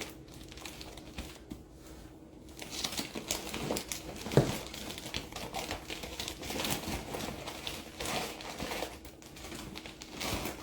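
Plastic bag crinkling and rustling in irregular bursts as plush toys are handled and stuffed into it, with one sharper knock about four and a half seconds in.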